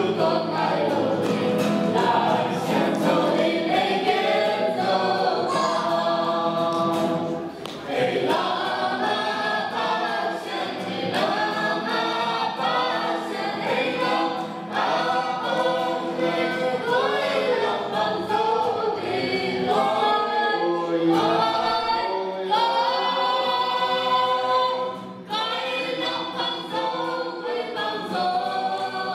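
A small mixed group of men's and women's voices singing a hymn together into microphones. There are short breaths between phrases, about a third of the way through and near the end.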